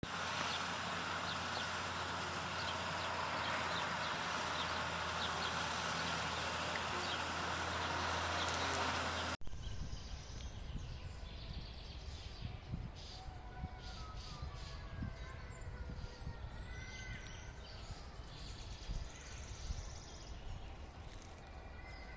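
Birds calling over a dense hiss and a steady low hum, then an abrupt cut about nine seconds in to a different recording of birds singing whistled, gliding phrases.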